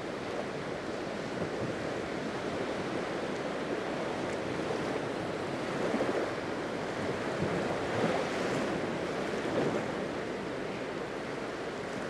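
Small Black Sea waves breaking and washing up the sand at the shoreline: a steady surf wash that swells a little as each wave runs in.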